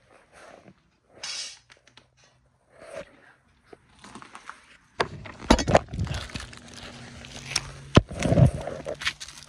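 Hurried footsteps and scuffing over broken rubble and debris. Scattered knocks and scrapes turn, about halfway through, into louder, irregular thuds and crunches.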